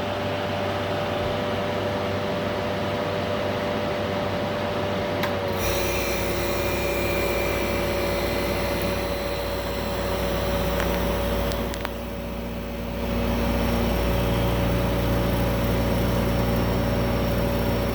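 Fan of a 1968 Philco Ford Noiseless window air conditioner running on low. About five seconds in there is a click, and its reciprocating compressor starts with a low hum, the fan's tone dropping slightly under the added load.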